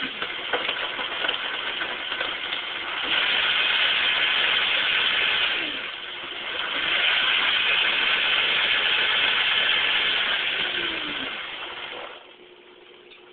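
Vitamix blender motor running with ice cubes in the jar. It grows louder twice, dips briefly about six seconds in, and cuts off about twelve seconds in.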